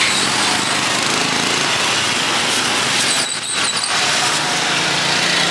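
Steady street traffic noise of small motorbike engines running, with a short dip about three seconds in.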